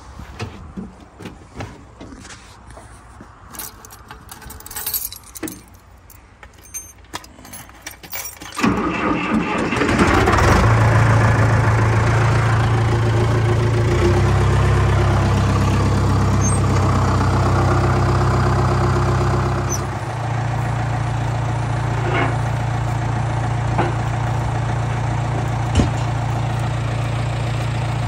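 Crawler loader's engine starting about a third of the way in and running steadily, stepping up a little and then settling to a lower, steady run about two-thirds through. Before it starts there are light clicks and knocks of handling in the cab.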